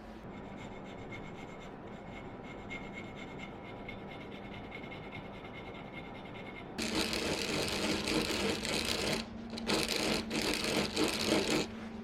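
Quiet steady background for the first half, then a hand tool worked on wood in a few long rough scraping strokes with short breaks between them, in the manner of rasping, sawing or planing.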